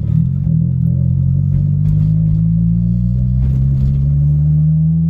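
Turbocharged Honda Civic EG's D15B four-cylinder engine running, its revs climbing slowly and steadily.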